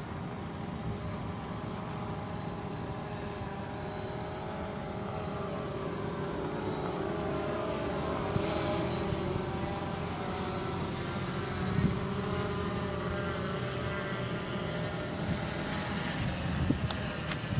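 An engine running steadily, its pitch rising gently and then falling back, with a few short knocks near the end.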